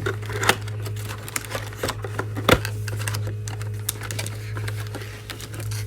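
Irregular clicks, taps and rustles of trading-card packaging being handled and opened, over a steady low hum.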